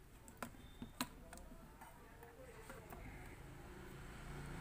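A few light clicks of steel tweezers and a small metal clamp against the plastic housing of a camera flash as the clamp is fitted, mostly in the first second and a half, then faint background.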